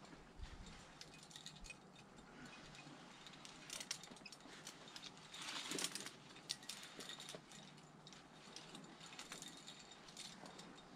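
Faint clinking and rattling of climbing hardware, carabiners and quickdraws knocking together, with scattered small clicks and a louder scrape about six seconds in.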